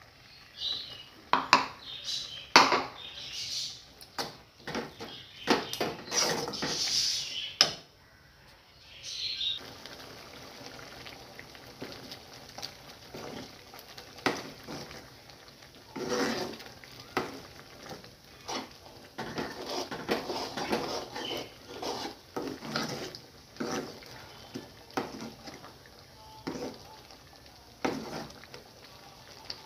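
Metal kitchenware clattering on a kadai: a steel container knocks loudly over the pan for the first eight seconds or so. Then, from about ten seconds in, a steel ladle scrapes and taps against the pan again and again while stirring thick prawn gravy.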